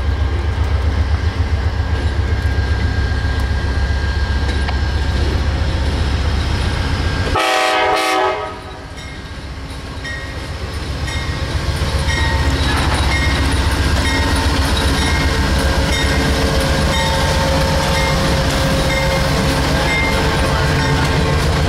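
Amtrak passenger train with a GE P42DC diesel locomotive coming in and passing close. A short horn blast comes about seven and a half seconds in, then the locomotive and coaches roll by with steady wheel noise and clatter on the rails.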